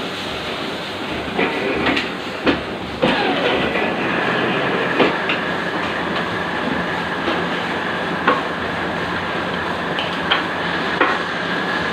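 Cutting machine running with a steady high whine and low hum, and irregular sharp clicks and knocks every second or so.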